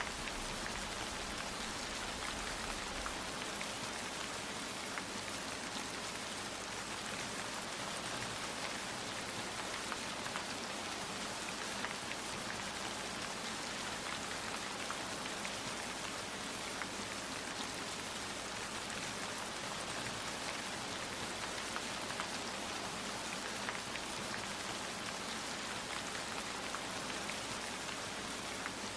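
Steady rain falling and pattering on a surface, with individual drops ticking through the constant hiss. A low rumble fades out in the first few seconds.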